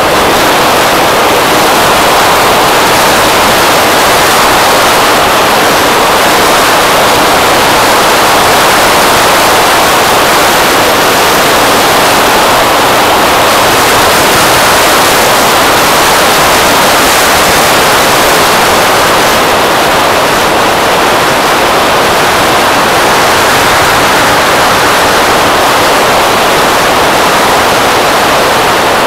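Steady, loud rush of wind buffeting the microphone of a camera on a moving scooter, drowning out any engine sound.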